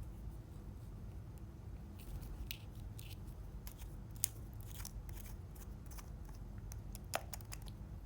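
Slime being handled and squeezed, giving scattered crisp clicks and crackles that begin about two seconds in, with two louder snaps.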